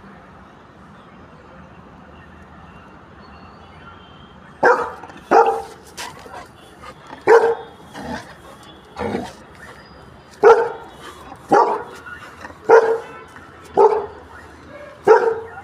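A retriever puppy barking repeatedly, about once a second, starting a little over four seconds in.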